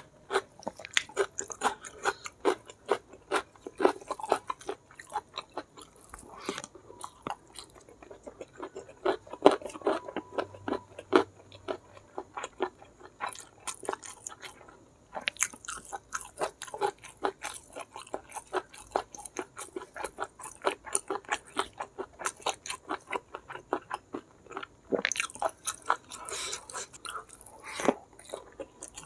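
Close-miked chewing of a hand-fed mouthful of rice with blood cockles in chili sambal and petai beans: a dense run of short clicks, several a second, with brief pauses.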